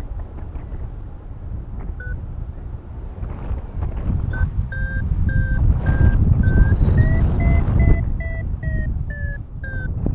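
Paraglider's variometer beeping in short repeated tones, a couple a second, rising in pitch to a peak and then falling again: the sign of the glider climbing in lift, the climb strengthening then easing. Wind rushes on the microphone underneath.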